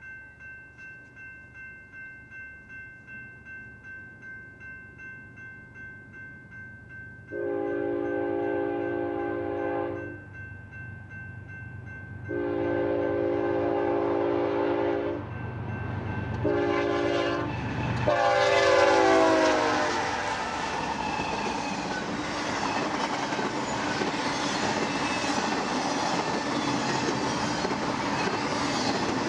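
Railroad crossing bell ringing about three times a second, then a BNSF freight locomotive's air horn blowing the grade-crossing signal: two long blasts, a short one and a final long one that drops in pitch as the locomotive passes. The freight train then rolls by with the steady clickety-clack of wheels on the rails.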